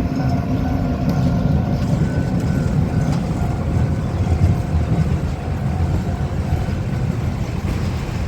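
Engine of a rail maintenance vehicle running steadily during shunting, a loud low rumble with a faint steady whine over it.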